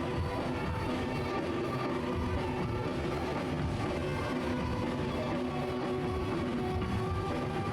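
Music with instruments playing steadily throughout.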